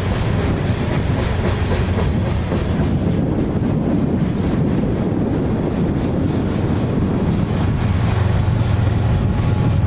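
CSX freight train rolling past, with the steady low drone of its mid-train GE diesel locomotives (an ES44AH and an ES40DC) and the wheels clicking over rail joints.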